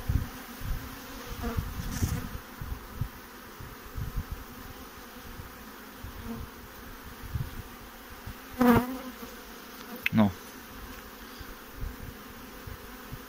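Honey bees humming steadily from an open hive crowded with bees. A few brief knocks from the wooden hive frames being handled; the loudest comes about two-thirds of the way through, with another shortly after.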